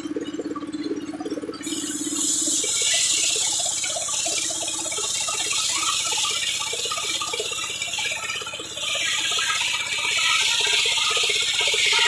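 Belt-driven circular saw bench running, then about two seconds in its blade starts ripping lengthwise through a wooden plank with a loud, steady high hiss and rapid chatter. The cut eases briefly near nine seconds, then carries on.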